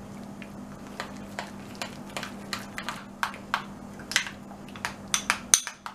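A spoon clicking against a ceramic bowl while stirring a thin flour-and-water batter to break up lumps, about three clicks a second, coming quicker near the end.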